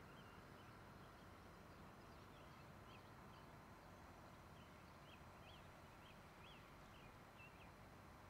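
Faint outdoor ambience: a bird's short high chirps, about two a second through the middle and later part, over a steady low hiss.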